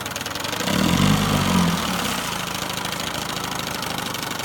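1971 Johnson 6 hp two-cylinder two-stroke outboard running in reverse gear in a test barrel. Its speed rises and falls briefly about a second in, then it settles back to a steady idle.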